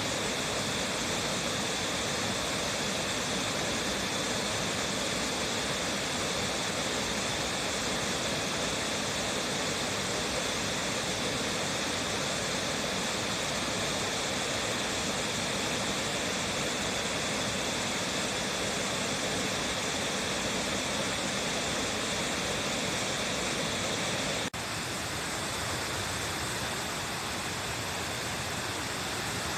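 Waterfall: the steady rush of falling water. About 24 seconds in, the sound shifts abruptly to a slightly quieter, different-toned rush.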